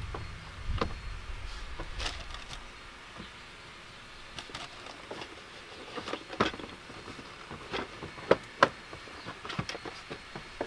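Irregular light clicks and knocks from hands handling tools and car parts, with a few sharper knocks about eight seconds in.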